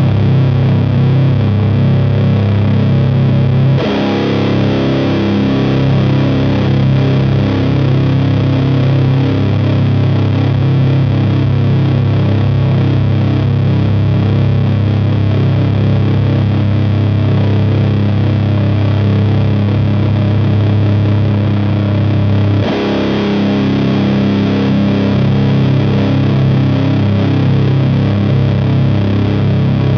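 Electric guitar (Fender Jazzmaster with P94 pickups, tuned to C standard) through the Burden high-gain fuzz/distortion pedal, playing heavy, long-sustaining drone chords. A chord is struck again about 4 s in and once more near 23 s, each time ringing on without a break.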